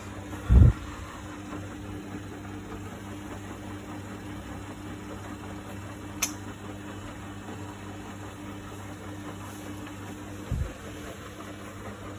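Samsung WF1700WRW washing machine running early in its daily programme: a steady machine hum, with a heavy low thump about half a second in, another softer one near the end, and a short sharp click near the middle.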